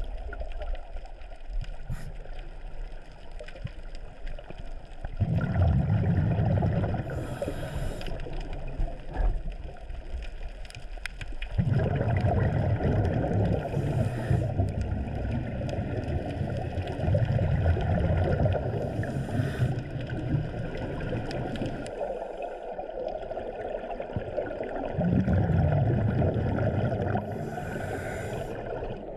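Scuba diver breathing underwater through a regulator: four brief hisses of inhalation, roughly six seconds apart, between long stretches of bubbling exhalation.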